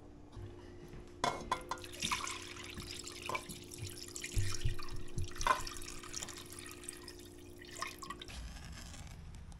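Miso and sake glaze poured from a steel saucepan over trout fillets in a stainless steel bowl, splashing and dripping as it falls. A couple of metal knocks come about a second in, a steady low hum runs underneath, and the pouring and hum stop near the end.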